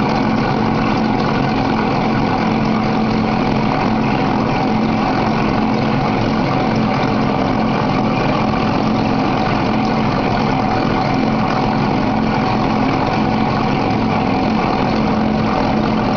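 Glass grinding machine running steadily, its grinding plate turning under two spindle heads with coolant fed from a pump. The sound is a steady hum with an even hiss over it, unchanging throughout.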